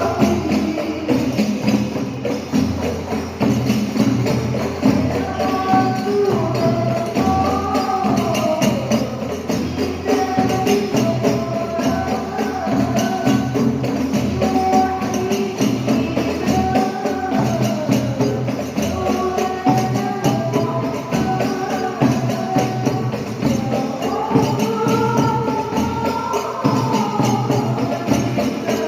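Hadroh ensemble: women's voices singing an Arabic sholawat over a steady beat of hadroh frame drums with jingles.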